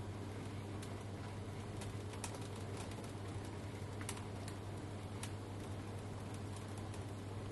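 Tumble dryer running: a steady low motor and drum hum, with scattered light clicks and ticks from the load tumbling in the drum.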